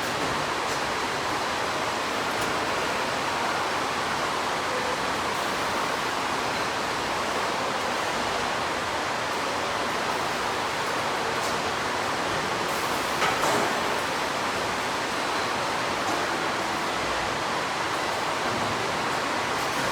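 Steady, even hiss of background noise with no clear tones, broken by one short knock about thirteen seconds in.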